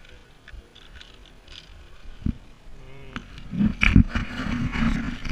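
Footsteps thudding and clanking on a metal-grating suspension bridge, with the bridge and clip hardware rattling, heard close through a helmet camera. It is quiet at first, then the knocks and rumble come thick and loud from about two seconds in.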